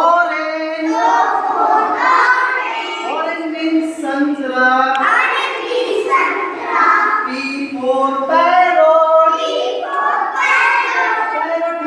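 A group of young children singing together in chorus, an action song led by their teacher.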